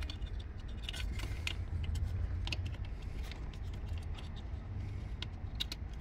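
Scattered faint clicks and plastic rattles of a wiring connector being handled and fitted to a steering column lock control board, over a steady low wind rumble on the microphone.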